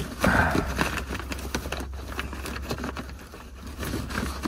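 Cardboard and paper rustling and scraping, with small irregular knocks, as a gloved hand rummages through the contents of a cardboard box, with a crinkly burst at the start.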